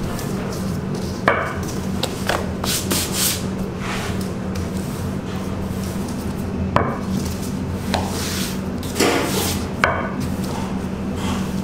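White plastic rolling pin rolling out pizza dough on a floured counter: scraping, rubbing swishes as the pin and gloved hands work the dough, with a few sharp knocks, three of them loudest, over a steady low hum.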